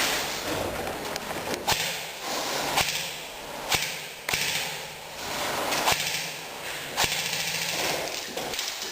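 Airsoft guns firing single shots: about six sharp cracks at irregular intervals, a second or more apart.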